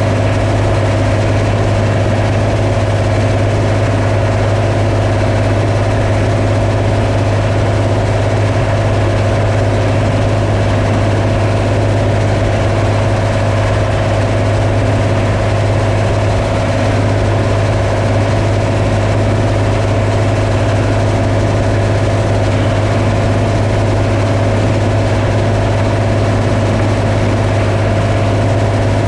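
Combine harvester engine running steadily: a constant low drone with a steady higher hum above it, with no change in speed.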